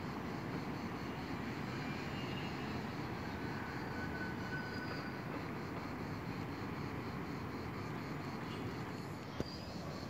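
Steady outdoor background rumble with no distinct source, with a short click near the end.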